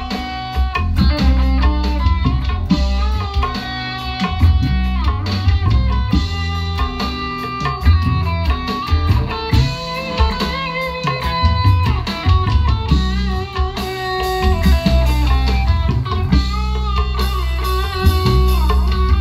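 Small live band playing an instrumental passage with no singing: an electric guitar carries a melody with bent notes over bass and a hand drum.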